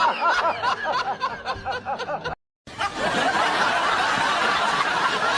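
A person laughing in quick, rising-and-falling bursts, cut off abruptly a little over two seconds in. After a brief silent gap, a dense, busy mix of noise with scattered clicks begins.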